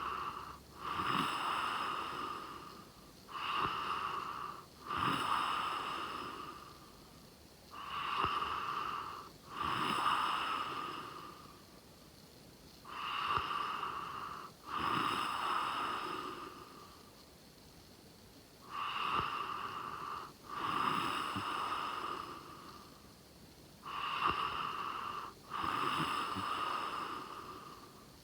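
A sleeping person snoring: each cycle is a short snore followed by a longer one, repeating a little over every five seconds.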